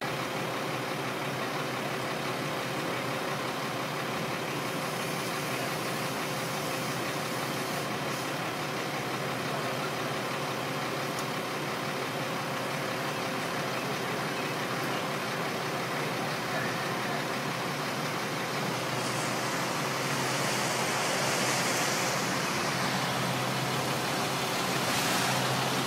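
Aerial ladder truck's engine idling steadily as a constant hum. A hiss swells for a few seconds near the end.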